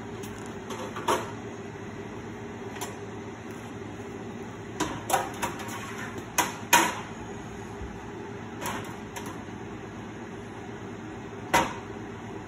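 A handful of short clinks and knocks of a plate, utensils and food containers handled on a kitchen counter, several bunched together mid-way and one more near the end. Under them runs the steady hum of a microwave oven heating food.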